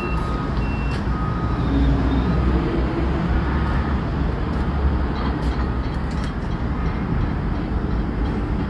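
Steady low vehicle rumble, with two short high beeps in the first second.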